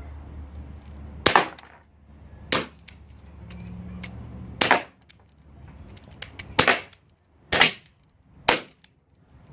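Gas-powered metal BB pistol, a Glock replica, firing six shots at uneven intervals, each a sharp pop.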